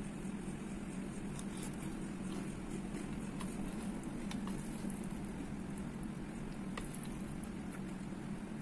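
Close-up eating sounds: a mouthful of Nestlé Koko Krunch chocolate cereal in milk being chewed, with a few faint clicks of a plastic spoon against the bowl as it scoops, over a steady low hum.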